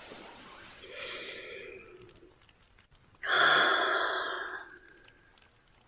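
A woman's close-miked breathy sighs: a soft exhale over the first two seconds, then a longer, louder sigh starting about three seconds in that fades away.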